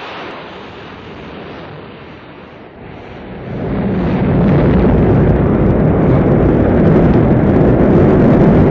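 Rocket engines igniting and lifting off: a sudden burst of rushing noise at ignition, then from about three and a half seconds in a loud, deep rumble builds and holds steady.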